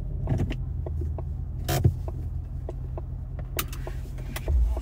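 Steady low rumble inside a stopped car's cabin, with several sharp clicks and a low bump near the end.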